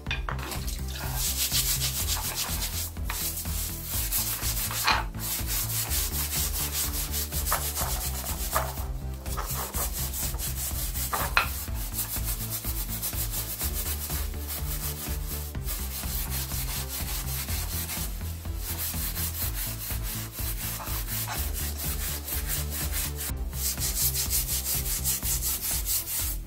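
Stainless steel scouring pad scrubbed rapidly back and forth over a wet claw hammer's steel head, scouring off rust and grime, in runs of strokes broken by short pauses.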